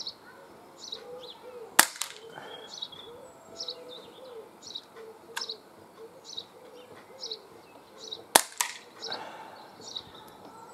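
CO2 blowback pellet pistol (Sig Sauer M17) fired twice, about six seconds apart. Each shot is a sharp crack followed about a fifth of a second later by a second crack, the pellet striking the target and its wooden frame; a fainter click falls between the two shots. Birds chirp throughout.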